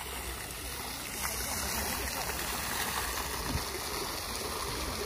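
Fountain jet splashing back into its pool: a steady rush of falling water.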